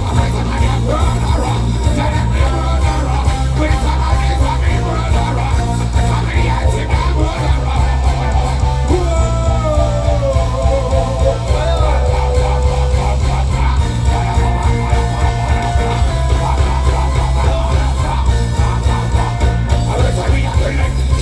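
Loud amplified music with a heavy steady bass beat and guitar, with a gliding melodic line, perhaps a voice, about halfway through.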